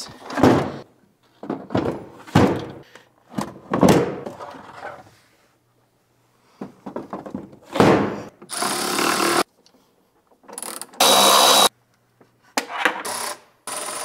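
Compact lithium batteries set down into a golf cart's battery bay with several knocks and thunks, then a cordless power tool run in two short bursts, the second louder, while the battery cables are fitted.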